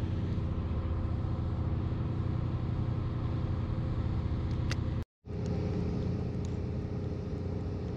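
An engine running steadily at idle with a low, even hum. The sound drops out completely for a moment about five seconds in.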